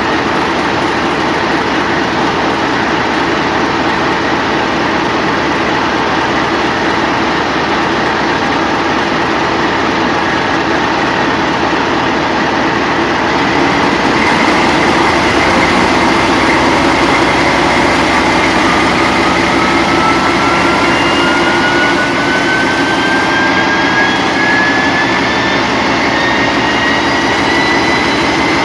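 A TEP70 diesel locomotive's 16-cylinder diesel engine running loud and steady. About halfway through it grows louder, and a high turbocharger whistle comes in and rises steadily in pitch as the engine takes on more power.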